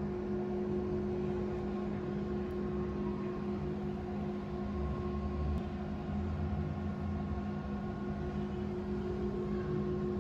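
CNC router running steadily: a constant machine hum with a few steady tones over a low rumble.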